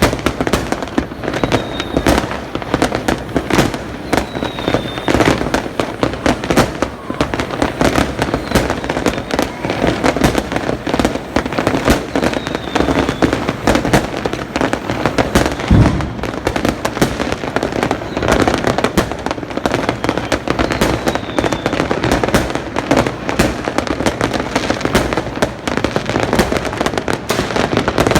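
Fireworks going off in a dense, continuous barrage of overlapping bangs and crackles, with one heavier, deeper boom about halfway through.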